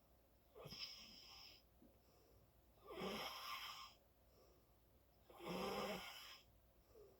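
A sleeping person snoring: three noisy breaths about two and a half seconds apart, the second and third louder, the last with a steady low buzzing note.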